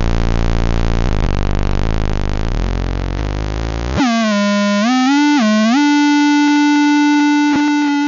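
Circuit-bent radio sound effect: a dense buzzing electronic noise, switching halfway through to a single synth-like tone that dips and wobbles in pitch before holding one steady note.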